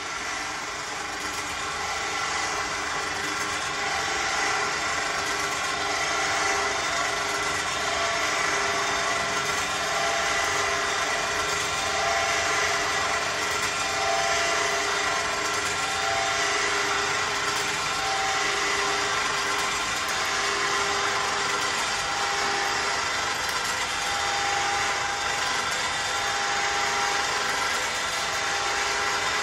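Electric winch motor running under load with a steady whine, powered by a small motorcycle battery, winding in cable to hoist a steel dump box.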